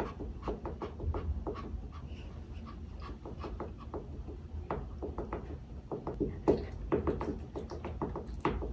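A toy poodle's wagging tail is beating against the wall, a rapid patter of soft knocks, several a second, in runs that come and go.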